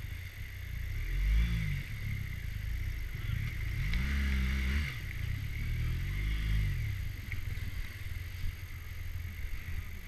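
BMW R1200GSA's flat-twin engine revving up and down three times in short swells over a steady run as the motorcycle is ridden through a river crossing.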